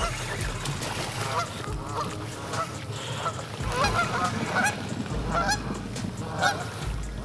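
Geese honking, a flock calling over and over in short rising-and-falling honks that grow busier about four seconds in.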